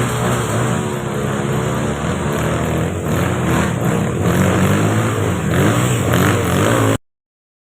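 Dirt bike engine running loud and revving on and off, then cutting off abruptly near the end.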